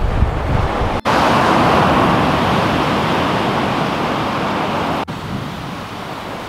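Surf breaking and washing up a sandy beach, a steady rushing hiss, with low wind rumble on the microphone at first. The sound cuts off abruptly about a second in and again near the end, where it continues a little quieter.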